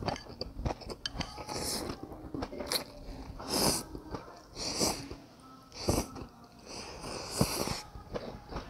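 A person slurping rice noodles, with several loud hissing slurps a second or two apart and chewing in between.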